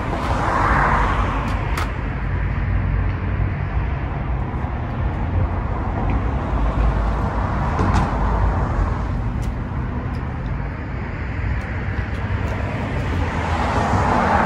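Road traffic: a steady low rumble of cars passing, swelling a little as one goes by about a second in and again about eight seconds in.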